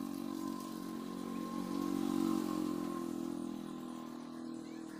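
A motor engine running steadily with an even hum, growing louder to about two seconds in and then fading.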